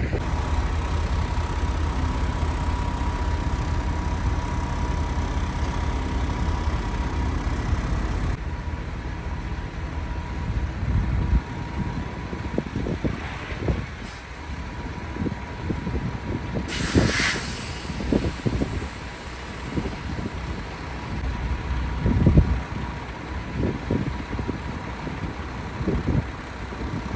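Truck running with a steady low rumble that drops back after about eight seconds, followed by scattered low knocks and a short hiss of air about seventeen seconds in.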